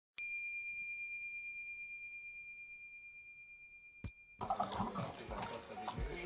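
A single bright chime struck once, ringing with a high metallic tone that fades slowly over about four seconds. A click comes about four seconds in, and music starts just after.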